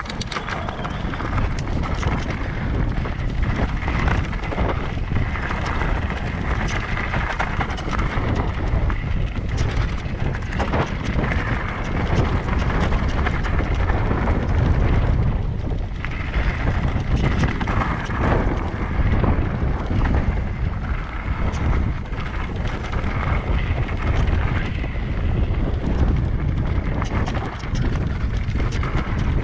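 Wind buffeting the microphone on a moving electric mountain bike: a steady low rumble with many short knocks and rattles.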